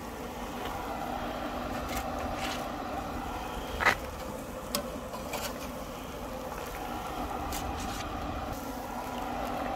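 Metal tongs and a spatula clicking against a charcoal grill grate and an aluminium foil pan as burger patties are lifted off. There are a few separate clicks, the sharpest about four seconds in, over a steady low hum.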